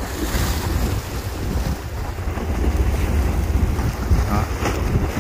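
Choppy sea waves washing against a concrete seawall and rocks, with wind buffeting the microphone in a steady low rumble.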